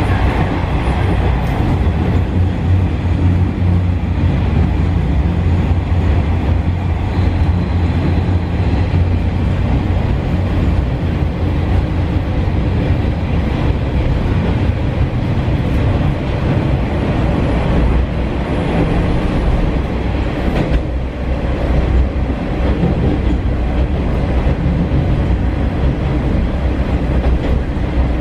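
Cabin running noise of a JR Shikoku KiHa 40 diesel railcar: a steady low diesel engine drone mixed with the rumble and clatter of the wheels on the rails. The low engine note eases about ten seconds in.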